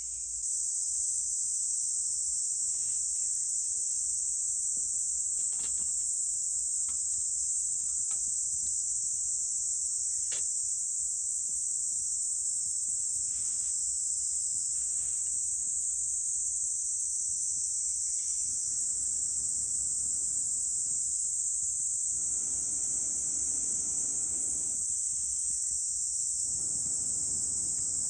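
A steady high-pitched chorus of summer insects runs throughout and is the loudest sound, with faint scattered clicks and crackles. In the later part there are two or three spells of a broad, breathy rushing noise, each a few seconds long.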